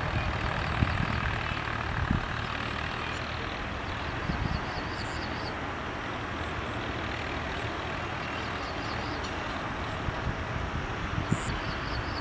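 Steady drone of distant farm tractor engines working the fields, with uneven low rumble like wind on the microphone. Twice a short run of high chirps rises above the drone.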